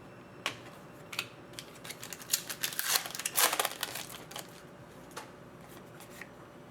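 Hockey card pack wrapper crinkling and tearing, with light clicks and rustles of cards being handled, busiest in the middle.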